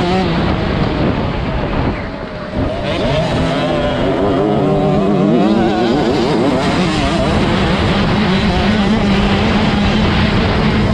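Small two-stroke 65cc motocross bike engine heard from on the bike, revving hard with its pitch swinging up and down. The throttle eases off briefly about two seconds in, then the engine pulls back up and holds high revs.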